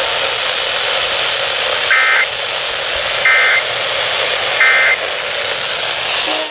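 Three short, identical bursts of Emergency Alert System SAME data tones, the end-of-message code that closes a flash flood warning broadcast, about a second and a half apart over steady radio hiss. The hiss cuts off suddenly at the end.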